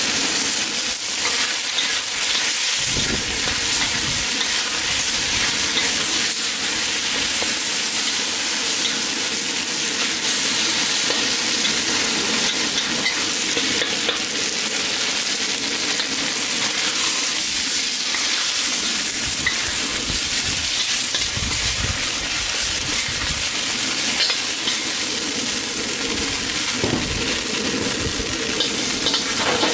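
Marinated chicken and its sauce sizzling in a very hot seasoned wok, stirred and scraped with a metal wok ladle: a steady frying hiss.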